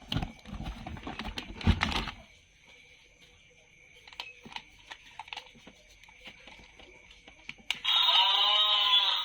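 Rustling and clicking of plastic packaging and toys being handled, loudest in the first two seconds, then scattered small clicks. About a second and a half before the end a loud, high, wavering pitched sound starts and holds.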